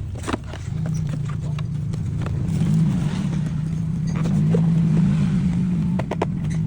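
A steady low engine-like hum that swells a little from about a second in, with scattered light clicks and taps over it.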